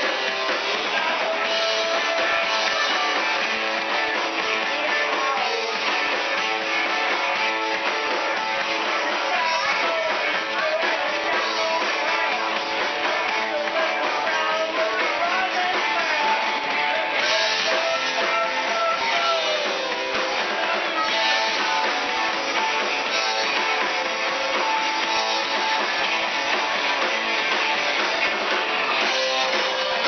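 Live band playing an upbeat number led by electric guitar, with drums. The recording is thin, with little bass.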